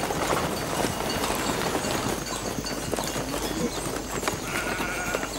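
Hoofbeats of an arriving caravan's horses: many irregular clip-clops over a busy bed of trampling and movement.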